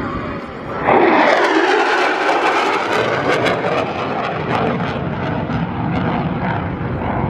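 F-35A's Pratt & Whitney F135 jet engine passing in a fly-by: loud jet noise comes in suddenly about a second in and slides down in pitch, then carries on as a crackling rumble.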